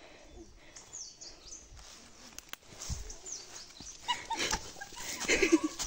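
Short pitched animal calls, growing louder toward the end, over faint high chirping in the first couple of seconds.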